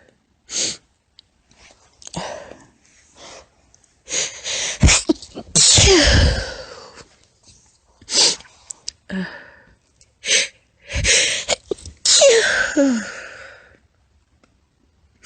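A woman sneezing over and over in a fit: a run of stifled, squeaky sneezes, several close together, the longest about five to six seconds in and another drawn-out one near the end.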